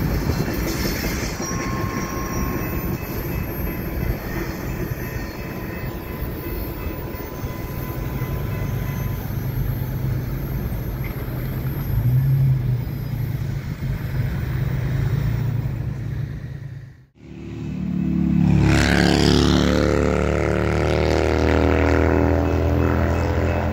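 A freight train's cars rolling over the rails past a grade crossing and moving away. After an abrupt cut about two-thirds through, a Norfolk Southern diesel locomotive approaches with its engine running steadily and louder.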